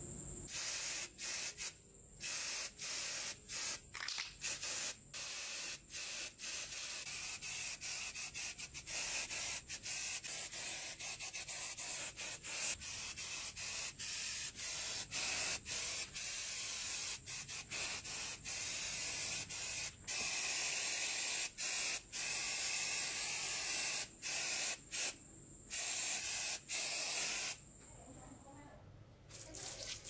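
Aerosol spray-paint can hissing in repeated bursts as the nozzle is pressed and released, with many brief breaks and a longer pause near the end.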